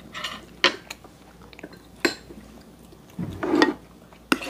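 Chopsticks and a spoon clicking against plates and dishes: a few sharp, separate clinks, with a brief low sound about three and a half seconds in.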